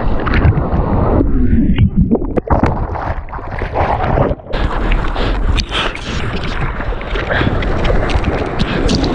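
Breaking wave and rushing, churning water heard through a GoPro in its waterproof housing as it rides through the wave, with wind buffeting the microphone. The sound goes muffled for a second or so when the camera dips under, and it drops out briefly about four seconds in as it goes underwater again.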